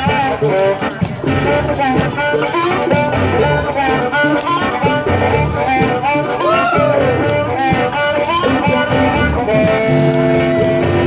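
Live electric blues band playing: electric guitar, keyboard and drums, with a harmonica played into a microphone, many of its notes bent up and down. Near the end the band settles on long held notes.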